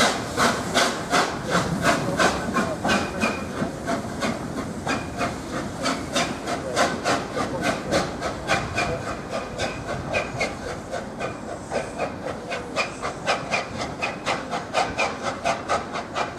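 Exhaust beats of LNER A4 Pacific No. 4464 Bittern, a three-cylinder steam locomotive, chuffing as it pulls away, over a steady hiss of steam. The beats quicken from about two and a half to about three a second and grow a little fainter near the end.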